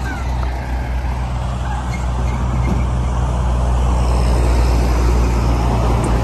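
Road traffic passing close by, trucks among it: a steady low engine drone under tyre noise that grows louder in the second half as a tractor-trailer goes past.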